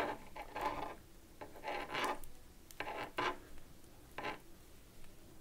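Metal knitting needles working sock yarn through a plain knit row: short scratchy rubs and light scrapes of the needle tips against each other and the yarn, coming irregularly about every half second.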